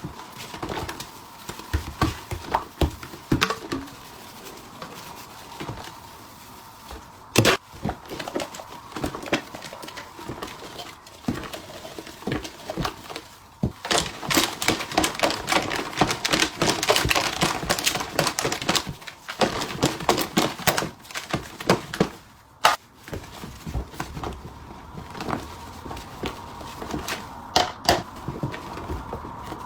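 Kitchen work with pots, bowls and utensils: scattered knocks and clatter, then a dense run of quick knocks from about halfway through to about three quarters of the way through.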